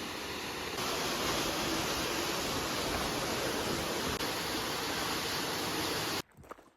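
Waterfall roar: a steady rush of falling water, a little louder about a second in, cutting off suddenly near the end.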